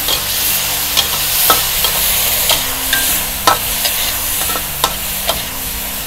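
Chopped garlic and fermented soybean paste sizzling in hot oil in an aluminium wok, stirred with a metal wok spatula that scrapes and clicks against the pan about every half second to a second.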